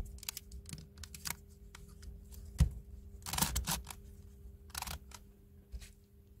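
Plastic layers of a 7x7x7 Ball in a Cube twisty puzzle being turned and handled: a quick, irregular run of clicks and clacks, with a sharp knock about two and a half seconds in and a burst of clacks just after. A faint steady hum runs underneath.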